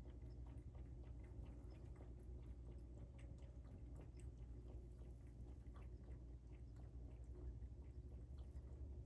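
Near silence: a steady faint low rumble with scattered soft ticks and clicks.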